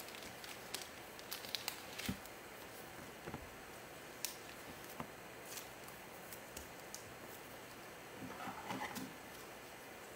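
Faint handling noises of trading cards in gloved hands: scattered light clicks and taps, with a short cluster of rustling near the end.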